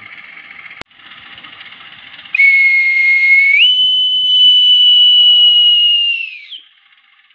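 Conductor's whistle giving the departure signal (semboyan 41). A shrill single tone starts about two seconds in and steps up to a higher pitch about a second later. It holds for about three seconds, then slides down as it stops.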